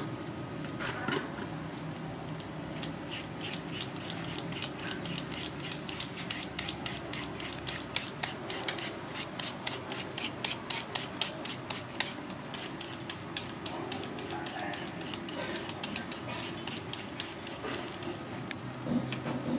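Rapid, rhythmic scraping, several even strokes a second, running from about three seconds in to about thirteen seconds, over steady rubbing and handling noise.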